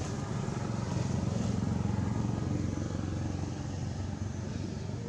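A motor vehicle engine running steadily. It grows louder about a second in and eases off near the end, like a vehicle passing by.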